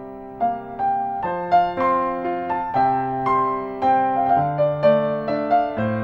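Solo piano music: a slow melody of struck notes over held bass notes.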